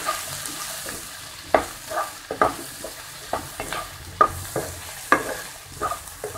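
Wooden spatula stirring raw banana slices and onions in a frying pan: irregular scraping strokes against the pan over a light sizzle of frying.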